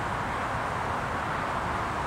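Steady hum of distant road traffic, with a low rumble underneath.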